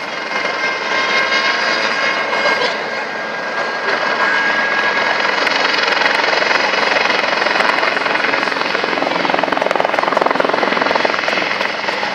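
Helicopter flying overhead in a display: loud, steady rotor and engine noise with a rapid chopping texture, growing a little louder from about four seconds in.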